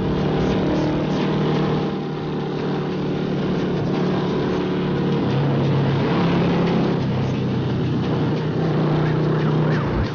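Yamaha LC135 single-cylinder four-stroke moped engine running under way through an aftermarket exhaust, its note stepping up and down with throttle, over wind and road noise. Near the end an ambulance siren starts to wail.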